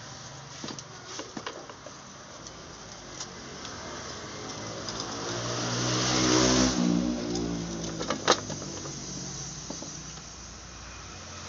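A motor vehicle passes by, its engine growing louder to a peak about six seconds in and then fading away. Light clicks and knocks of plastic parts being handled, the sharpest about eight seconds in.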